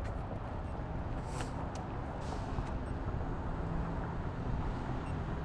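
Steady low outdoor rumble, like wind buffeting the microphone, with faint traffic noise.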